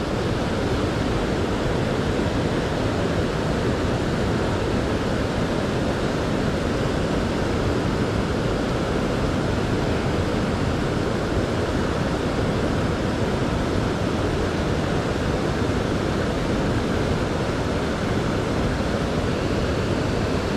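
Steady, even rush of a fast-flowing river current.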